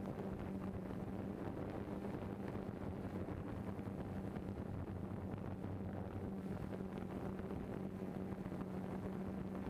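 Multirotor drone's motors and propellers humming at a steady pitch while it hovers, with some wind noise on the microphone.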